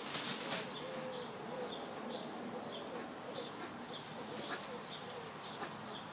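Two-day-old smew ducklings peeping: short, high, falling calls repeated about twice a second.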